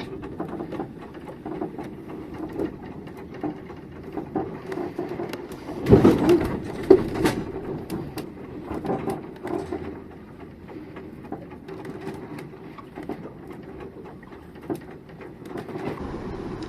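Sailboat working through a rough head sea: a steady mechanical whir with constant small clatter and knocks from the boat, and a heavy burst of thumps and banging about six seconds in.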